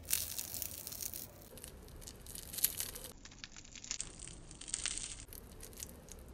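Crisp fried coating crackling as fingers tear apart a piece of vegan fried chicken: a run of small, sharp crunches, busiest about the first second and again in bursts later on.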